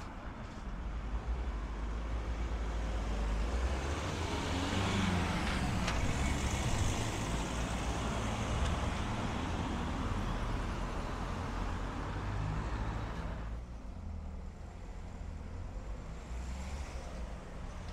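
Road traffic passing along the street, a rushing noise that swells over the first few seconds and dies away about three quarters of the way through.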